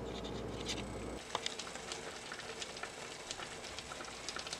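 Sliced zucchini, bell peppers and onions sizzling in olive oil in a wok, with scattered crackles and pops. A low hum under it cuts off about a second in.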